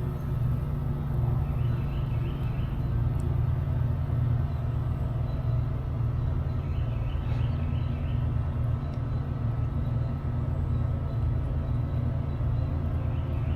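Steady low mechanical hum, like a motor running, with faint high chirps coming in short clusters three times.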